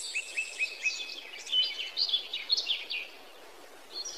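Small birds chirping: a quick run of short, high chirps and twitters for about three seconds, then fading to a faint hiss.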